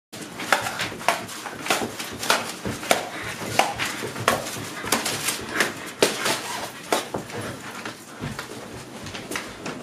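A person panting heavily while running, with short rough breaths about every half second.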